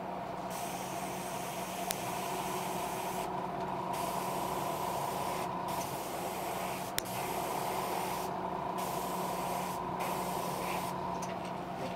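Airbrush spraying paint onto a fishing lure: a hiss of air that comes in spells, cutting off briefly about five times, over a steady hum.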